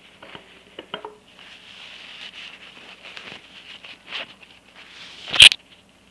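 Tissue paper rubbing and wiping against a drinking glass, a soft scrubbing rustle with a few small clicks, then one sharp loud knock near the end.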